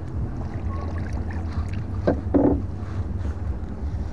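Wind buffeting the microphone in a small open boat at sea, a steady low rumble. A brief louder sound stands out about two seconds in.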